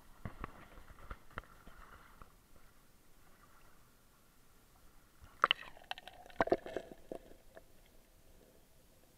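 Muffled knocks and clatter on a GoPro's waterproof housing as it is handled, a few in the first second and a half. About halfway through comes a louder cluster of sharp knocks and water noise as the camera dips under the river's surface.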